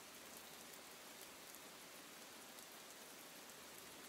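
Rain falling steadily: a faint, even hiss with fine scattered drop ticks.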